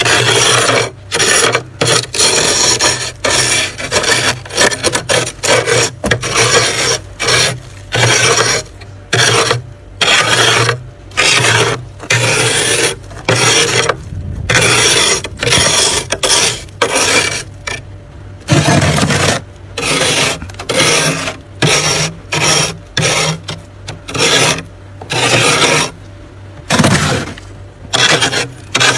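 A spoon scraping thick built-up frost off a freezer's ceiling, in quick repeated strokes with short gaps between them.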